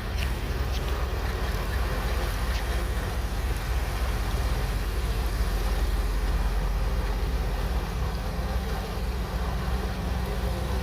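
Shantui DH17C3 bulldozer's diesel engine running steadily with a deep, even drone, with a few faint clicks in the first few seconds.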